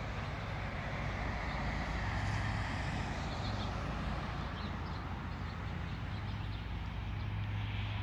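Cars passing on a nearby road: tyre and engine noise that swells about two seconds in and again near the end, over a steady low hum.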